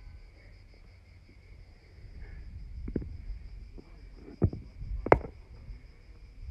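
Insects chirring steadily in a fast, even pulse. Three sharp knocks come in the second half, the last two the loudest.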